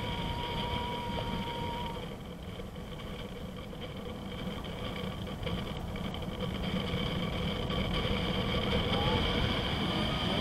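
Wind rushing over the microphone in flight on a tandem paraglider: a steady low rumble with no clear break.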